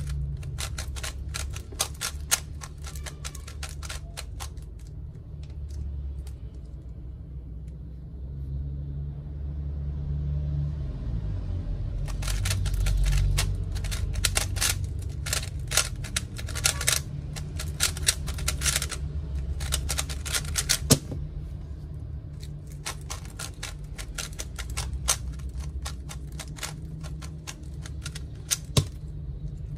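QiYi MP magnetic 3x3 speedcube being turned fast by hand: rapid runs of plastic clicks as the layers snap into place under the magnets, with a quieter pause in the first half before a long burst of turning. A couple of sharper single knocks stand out, one about two-thirds through and one near the end.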